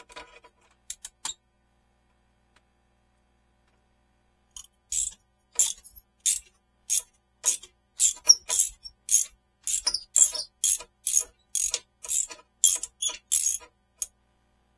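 Ratchet wrench worked in short repeated strokes, about two ratcheting bursts a second, after a few faint clicks.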